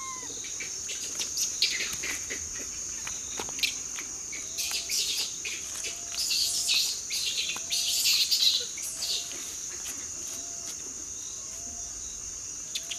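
Tropical nature ambience: insects shrilling steadily on one high note, with birds calling over it. A short, low, arching call repeats about once a second through the second half, and a run of sharp high chirps in the middle is the loudest part.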